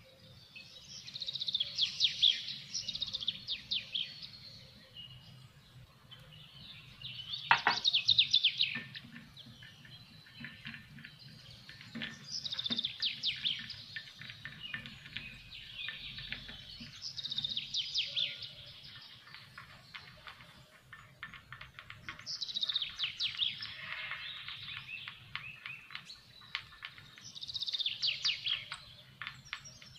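Birds singing: chirping, trilled phrases of two to three seconds each, recurring about every five seconds.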